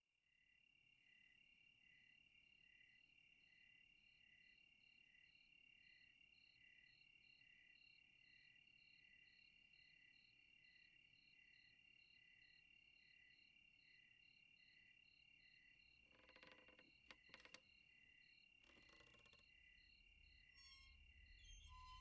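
Faint crickets chirping in a steady night-time chorus, one continuous high trill with evenly pulsing chirps around it. A few brief soft knocks come late on, and a low rumble starts to build near the end.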